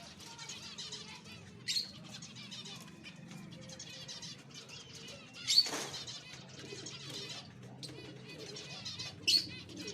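Zebra finches chattering steadily as they bathe, with wings fluttering in the water. Three short louder bursts stand out, the loudest about halfway through.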